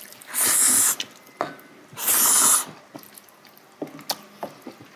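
Slurping of japchae glass noodles, two hard slurps of about half a second each, around half a second and two seconds in, followed by a few faint clicks.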